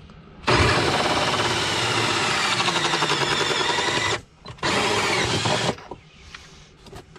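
Cordless drill running a 2-inch hole saw, cutting a hole for the sump pump discharge pipe: one long run of about three and a half seconds, a brief stop, then a second, shorter run of about a second.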